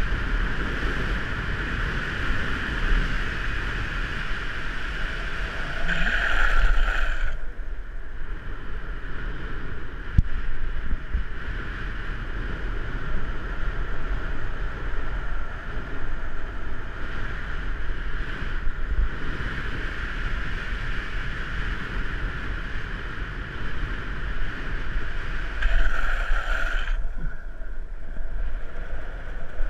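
Longboard's urethane wheels rolling fast down asphalt, with wind rushing over a helmet-mounted camera's microphone: a steady roar. It swells twice, briefly, about six seconds in and again near the end.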